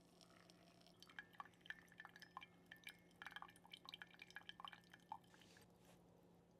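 Faint, irregular drips of coffee falling from a V60 pour-over dripper into the brewed coffee below. They start about a second in and stop about a second before the end.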